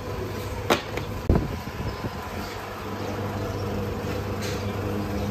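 A steady low machine hum, with a sharp click about 0.7 s in and a heavy thump just over a second in; a second steady tone joins the hum near the end.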